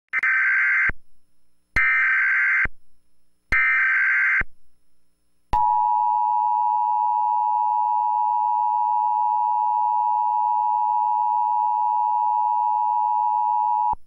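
Emergency Alert System broadcast tones: three short bursts of the warbling SAME digital header, each under a second, then from about five and a half seconds in the steady two-tone attention signal, held for about eight seconds and cutting off sharply at the end. The header carries an Emergency Action Notification, the code for a national alert.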